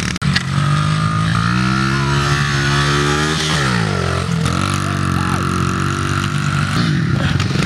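Small four-stroke pit bike engine revving hard as it rides past close by. Its pitch climbs, drops sharply about three and a half seconds in, then climbs and holds again.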